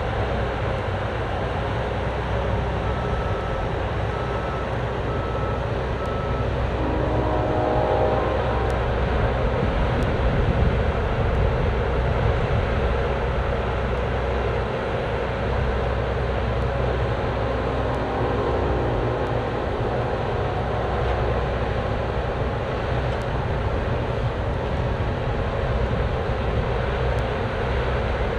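Cat 304D mini excavator's diesel engine running steadily under hydraulic load as it works dirt, with a whine from the hydraulics rising twice as the boom and bucket move. A few seconds in there is a short run of beeps.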